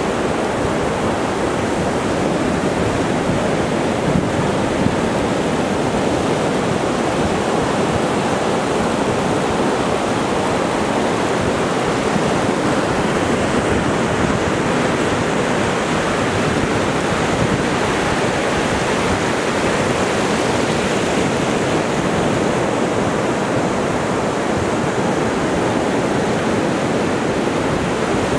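Ocean surf breaking and washing up a flat beach, an even, steady rush of water without separate crashes.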